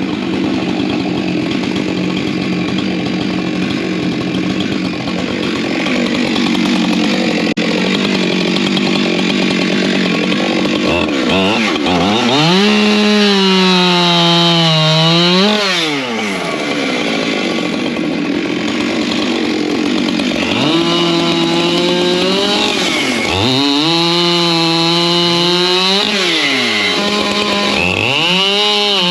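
Two-stroke chainsaw running hard while cutting firewood. Its engine pitch drops as the chain loads up in the cut and climbs back as it clears, several times over.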